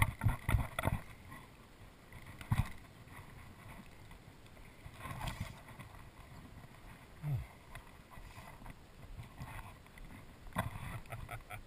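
Knocks and bumps on a kayak's hull and gear, picked up through the boat-mounted camera, clustered in the first second with another sharp one about two and a half seconds in. Quieter handling noise runs between them, with a short low sliding sound a little past seven seconds.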